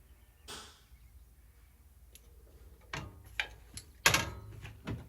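A few sharp clicks, then a louder knock about four seconds in and another near the end: doors or latches in a travel trailer interior being opened and handled.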